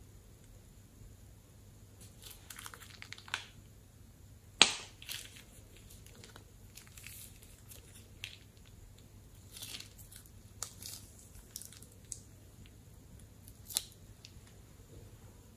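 Thin plastic piping bag crinkling and crackling in the hands as slime is squeezed out of it, in scattered spells. There is a sharp snap about five seconds in, the loudest sound, and a smaller one near the end.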